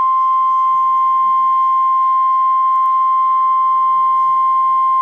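NOAA Weather Radio warning alarm tone: a single loud, steady 1050 Hz beep held without a break from a weather radio receiver. It signals that a warning broadcast, here a tornado warning, is about to follow.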